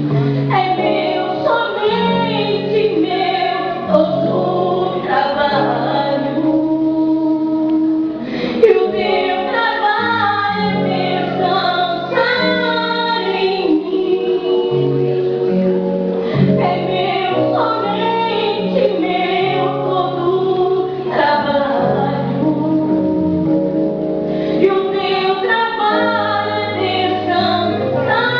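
A woman singing a Portuguese gospel hymn with musical accompaniment, a continuous sung melody over held low notes.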